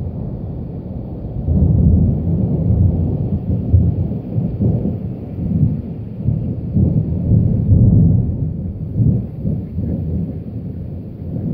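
Strong gusty wind buffeting the microphone: a loud low rumble that swells about a second and a half in, then rises and falls unevenly with the gusts.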